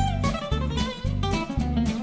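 Background music: plucked guitar over a steady drum beat.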